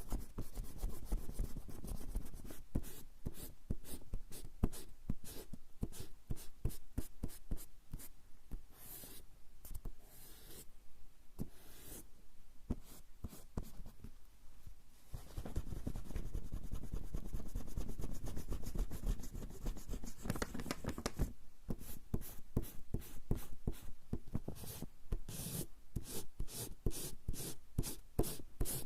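Rubber eraser rubbed back and forth on coarse straw paper (warabanshi), erasing in fast repeated strokes, several a second. The strokes ease off for a few seconds around the middle, then give way to a steadier, denser rubbing before quick strokes return.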